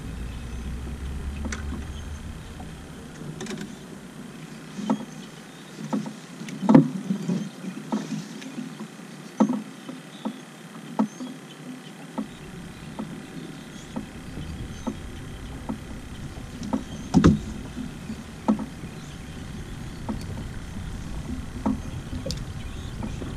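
Scattered knocks and clicks of fishing tackle and hands against a small boat while a hook is baited and a rod is handled. The loudest knocks come about seven and seventeen seconds in.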